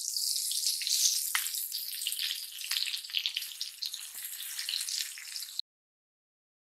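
Pieces of green jackfruit sizzling as they fry in oil in a metal wok, with a few sharp taps of the spatula against the pan. The sizzle cuts off abruptly about five and a half seconds in, leaving dead silence.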